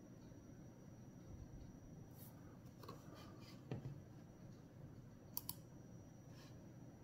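Near silence: room tone with a few faint clicks from handling the tablet, the sharpest a quick double click about five and a half seconds in.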